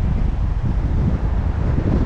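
Wind buffeting the microphone of a camera on a moving car: a steady, low, rumbling rush with the car's road noise beneath it.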